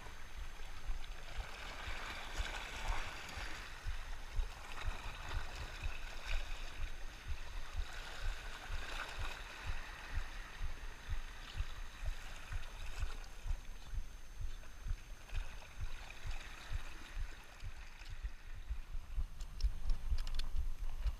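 Small sea waves lapping and washing against shore rocks, with low irregular thumps on the microphone throughout and a few sharper clicks near the end.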